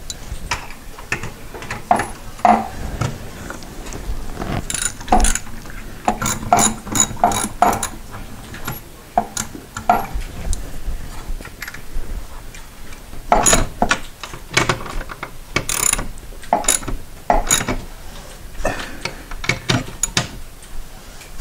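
Ratchet wrench clicking in short irregular runs as nuts are tightened onto the threaded studs that anchor a newel post from below.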